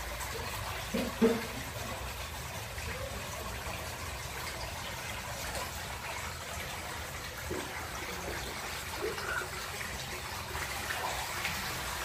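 Hot-spring source water pouring steadily from a spout into a stone bathtub, a continuous splashing trickle of free-flowing (kakenagashi) spring water. A couple of brief knocks sound about a second in.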